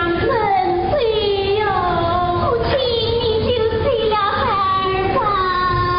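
Huai opera music: a single high melodic line that swoops and slides down from note to note, running on without a break.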